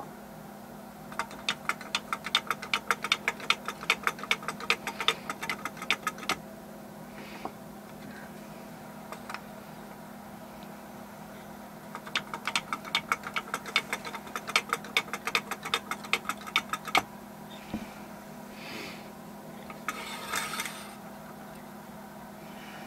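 Wooden hopping kangaroo toy hopping down a sloped wooden test track, its legs tapping the board in a quick clatter of wooden clicks. The clatter lasts about five seconds, and a second run comes about ten seconds later.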